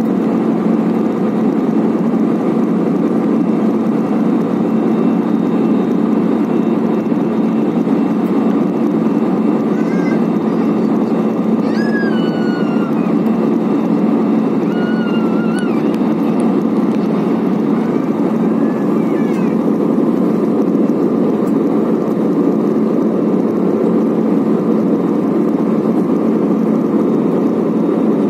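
Steady cabin noise inside an Airbus A320-family jetliner in flight: engine and airflow noise with a steady low hum. A few faint, high, wavering sounds come through between about ten and twenty seconds in.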